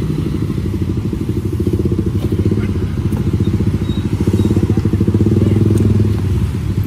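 A small engine idling close by, a steady rapid putter that grows a little louder around the middle, with a few light clicks over it.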